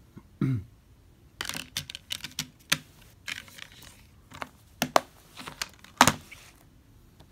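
A plastic Blu-ray case and disc being handled: an irregular run of sharp plastic clicks and snaps, the loudest about six seconds in.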